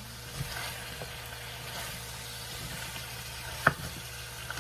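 Squash, okra and bitter melon sautéing with shrimp paste in a stainless steel skillet, sizzling steadily while being stirred. A utensil knocks sharply against the pan once, about three and a half seconds in, with a few lighter taps around it.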